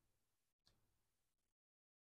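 Near silence, with two very faint ticks.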